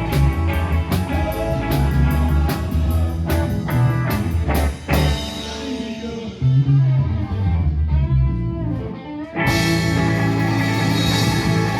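Live rock band with electric guitar, bass and drums playing an instrumental passage. Regular drum hits stop about five seconds in, leaving held guitar notes that waver in pitch, and the full band comes back in abruptly near the end.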